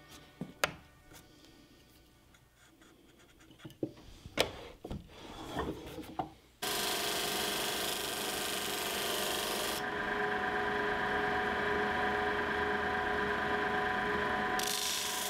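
Scattered light knocks and scrapes of chisel work on wood. From about six and a half seconds in, a disc sander runs steadily with a motor hum while a small piece of wood is held against its abrasive disc. The gritty sanding hiss eases for a few seconds in the middle and picks up again near the end.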